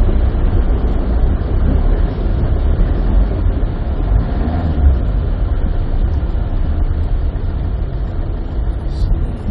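Steady, loud low rumble with a hiss over it, like a vehicle driving slowly along.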